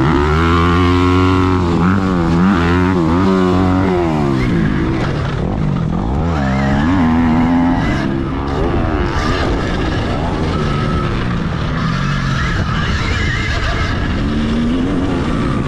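Dirt bikes racing close by, their engines revving up and down over and over.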